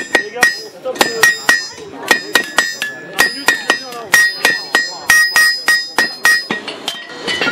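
Blacksmiths' sledgehammers striking a workpiece on an anvil in turn, a fast run of ringing metal blows at about three or four a second.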